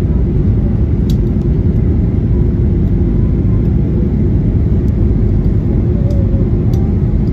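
Cabin noise of a Boeing 737-800 on descent, heard from a window seat: the steady, loud, low rumble of its CFM56-7B engines and the airflow over the fuselage. A couple of faint clicks come through, about a second in and near the end.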